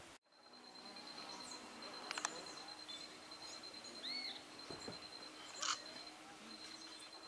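Small songbirds calling: two sharp chip notes about two and five-and-a-half seconds in, and a short arched note about four seconds in, over a steady high-pitched rapid trill.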